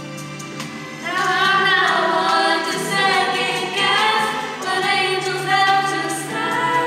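Girls singing a slow song into a microphone, their voices coming in about a second in over a steady instrumental accompaniment.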